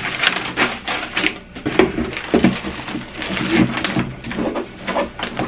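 Tissue paper and a plastic bag rustling and crinkling in irregular bursts as a cardboard shoe box is unpacked and handled.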